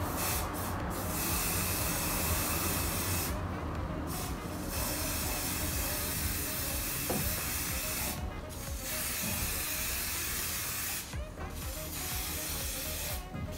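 Aerosol hair colour spray hissing from the can in several long bursts, each a few seconds long, broken by short pauses.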